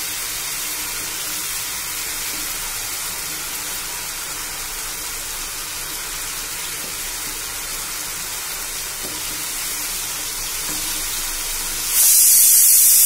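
Onion-and-spice masala sizzling in a pan with a little added water, a steady hiss. It turns suddenly louder and brighter near the end.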